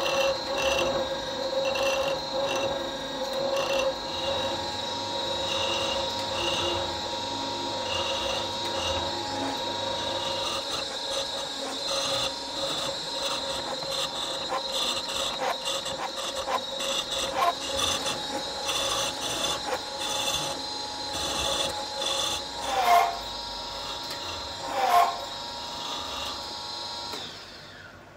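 Workshop tool noise in metalwork: a steady motor whine with rhythmic rasping, scraping strokes and a couple of short squeals, cutting off shortly before the end.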